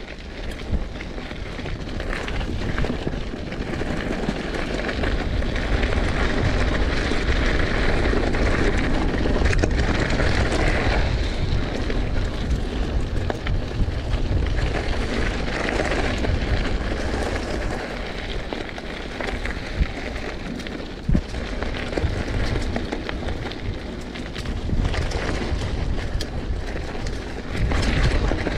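Mountain bike riding on a dirt singletrack: wind buffeting the action-camera microphone over the tyres rolling on the trail, with a few sharp knocks from the bike.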